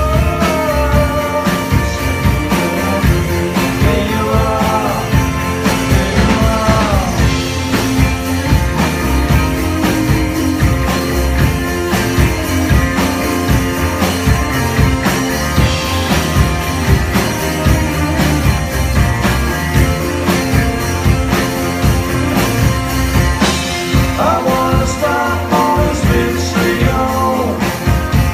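Live rock band playing a song: electric guitars, bass guitar and drum kit, with a man singing lead in stretches near the start and again near the end.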